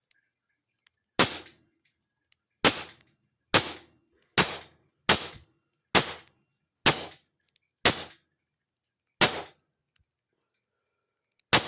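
AEA HP SS Plus .25 calibre semi-automatic PCP air pistol firing about ten shots in quick succession, each a sharp crack, roughly one a second with a longer pause before the last shot.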